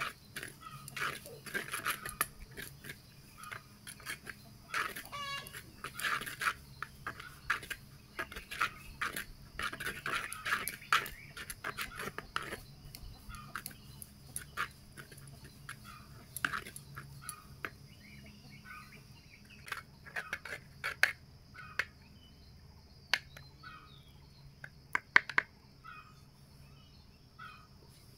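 Chickens clucking, mixed with a metal spatula scraping and tapping the pan as leafy greens are stirred. A few sharp taps stand out in the second half.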